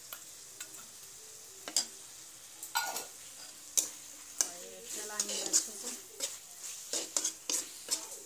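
Sliced onions frying in hot oil in a metal kadhai with a steady sizzle, stirred with a metal spatula that scrapes and clinks irregularly against the pan.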